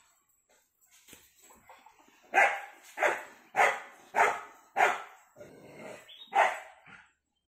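A dog barking: a run of about seven loud barks in quick succession, starting about two seconds in.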